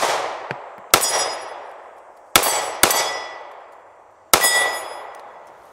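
CZ 2075 RAMI compact pistol fired five times at an uneven pace, two of the shots close together. Each shot is followed by a ringing clang from the steel targets being hit.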